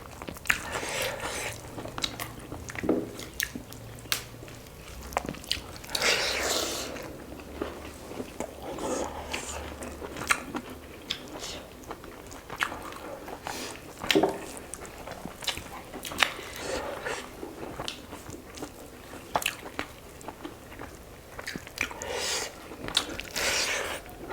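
Close-miked eating: a person chewing and biting through a meal of chicken curry and rice, with wet mouth clicks and a few louder crunchy bites.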